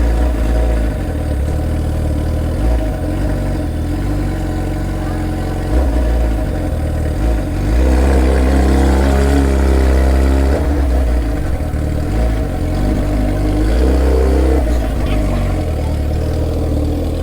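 Sport motorcycle engine running under way, pulling harder and louder from about eight seconds in to about ten and a half, and again briefly near fourteen seconds.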